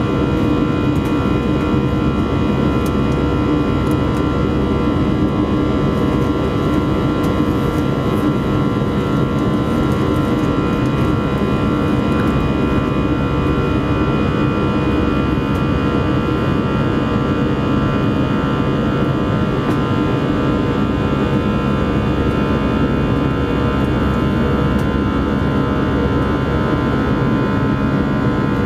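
Airbus A319 jet engines at climb power, heard inside the cabin from a window seat by the engine: a steady, loud roar with several steady whining tones over it.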